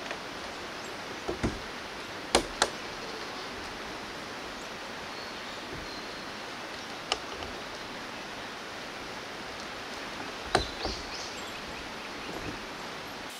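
Steady rush of river water, with a handful of sharp clacks scattered through it, the loudest a pair a couple of seconds in and another about three-quarters of the way through.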